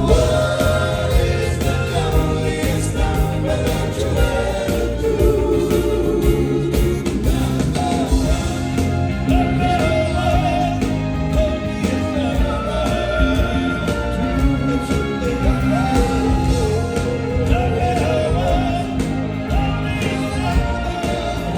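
Live rock band playing, with a singer's lead vocal wavering and holding notes over the band.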